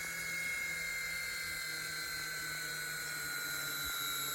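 Small electric motors of a cheap toy radio-control helicopter running with a steady high whine that slowly falls in pitch. It keeps running although the controller does nothing.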